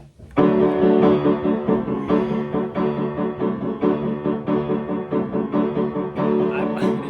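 Piano or electronic keyboard playing sustained chords, a new chord struck about once a second, starting about half a second in after a count-in.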